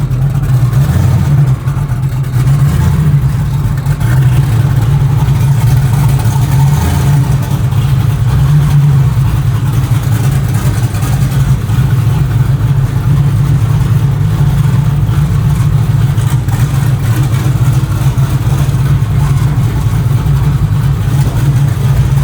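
Chevrolet Nova race car's engine running steadily at low speed, loud and rough. It is running on pump gas with a rough tune meant only to move the car around, and it is not running well.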